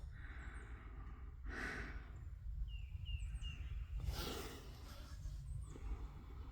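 A man breathing out heavily near the microphone twice, a couple of seconds apart, with a few faint high bird chirps and a low steady rumble underneath.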